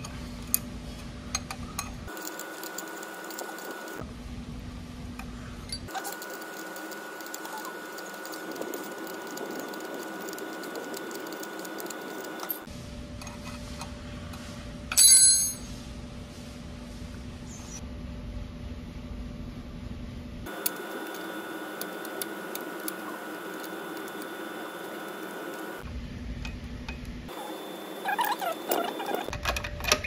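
A spanner working small bolts on a motorcycle's gear-shift linkage: scattered light metal clicks and taps over a steady hum, with one louder, ringing metallic clink about halfway through.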